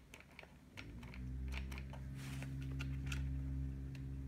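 Light clicks and taps of fingers handling the servos and plastic parts in the radio tray of a 1:8 nitro RC short-course truck. From about a second in, a low steady hum runs underneath.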